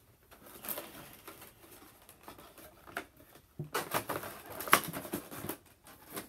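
Clear plastic packaging rustling and crinkling as it is handled, in irregular bursts, loudest a little past halfway through.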